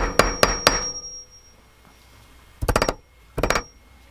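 Light hammer taps on metal at a bench vise, shaping a thin aluminium fin over the vise's anvil. Four sharp strikes, each with a short metallic ring, come in the first second, then two quick bursts of rapid tapping about a second apart.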